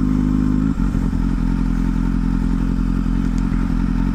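Motorcycle engine running at steady revs, with a single clunk about three-quarters of a second in.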